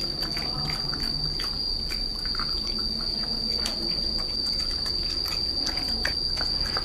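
A pig eating vegetables: irregular wet chewing clicks and crunches over a steady high-pitched tone.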